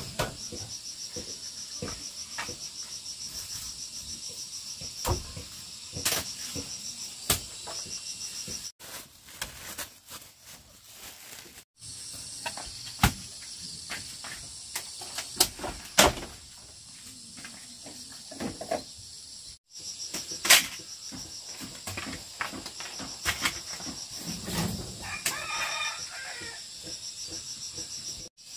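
Crickets chirping in a steady, pulsing trill, with scattered knocks and clatter from household items being handled. A rooster crows once near the end.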